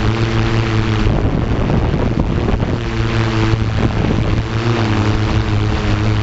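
Steady hum and rush of a multirotor drone's motors and propellers close to the camera. The hum holds one low pitch with overtones, and its upper tones fade and waver for a while mid-way.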